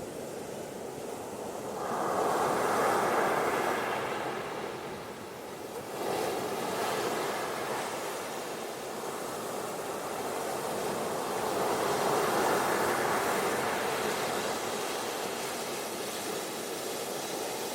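Ocean surf washing onto a beach, rising and falling in swells: one wave builds about two seconds in, another breaks with a sudden surge about six seconds in, and a third swells near the twelve-second mark.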